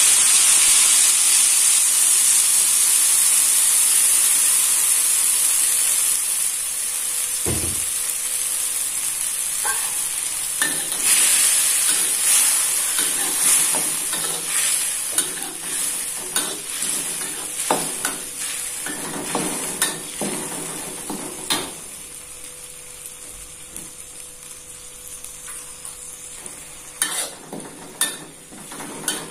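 Wet ground spice paste sizzling loudly in hot cooking oil, the sizzle gradually dying down while a utensil stirs it and knocks and scrapes against the pan, with more knocks toward the end.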